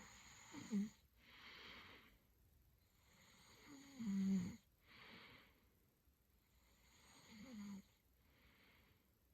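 Snoring: three slow breaths, each a rattling snore on the in-breath followed by a breathy out-breath, about every three and a half seconds. The snore about four seconds in is the loudest.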